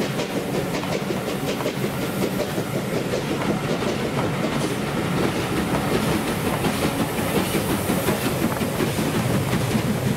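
A steam-hauled passenger train rolling past close by, its coach wheels clattering steadily over the rails.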